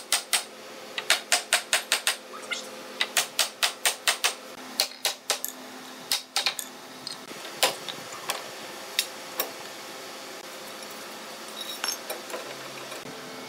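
A hammer knocking the joints of a hardwood bed panel held in steel bar clamps. The sharp taps come in quick runs of about five a second through the first few seconds, then as scattered single knocks, over a faint steady hum.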